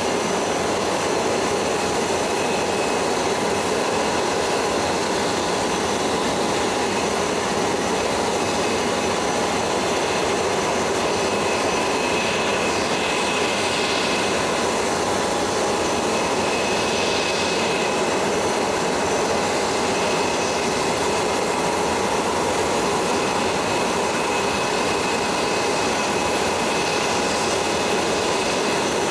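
Steady whine and rush of a jet turbine engine running, even and unchanging, with a thin constant whine over the noise.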